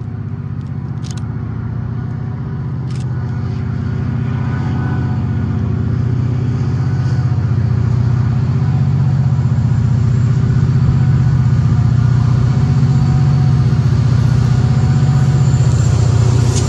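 EMD diesel locomotive engine running steadily under power, with a deep, even pitch, growing gradually louder as the excursion train approaches.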